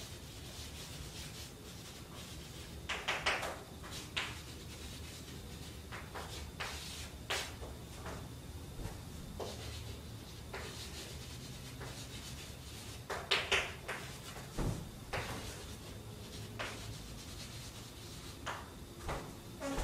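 Chalk writing on a chalkboard: irregular short taps and scratches of the chalk strokes, busier about three seconds in and again past the middle, over a steady low room hum.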